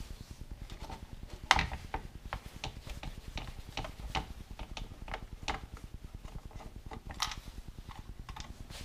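Scattered light clicks and taps of a T20 Torx screwdriver backing a small screw out of a plastic tailgate handle and handling its camera bracket, with one sharper knock about one and a half seconds in.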